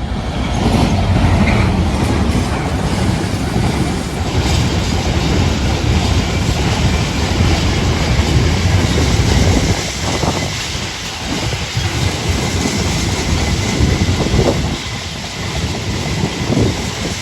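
A train passing close by, with a heavy low rumble for the first half, then lighter wheel noise and spaced knocks of wheels going over rail joints.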